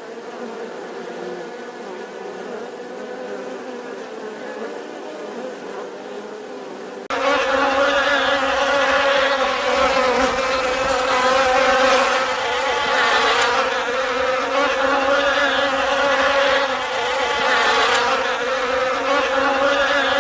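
Bees buzzing in a steady, pitched hum. About seven seconds in it becomes louder and fuller.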